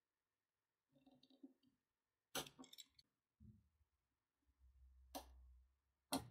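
Faint, sparse clicks and light knocks, with three sharp clicks about two and a half, five and six seconds in, and a brief low hum in between.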